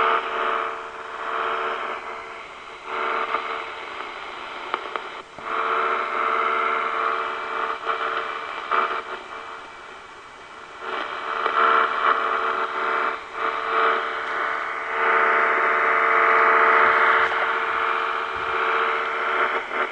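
Interference from a Royce 639 CB radio's speaker on AM: a buzz of steady tones over a hiss, swelling and fading in strength. The owner traces it to a bad contact in a cable picking up interference from a computer monitor.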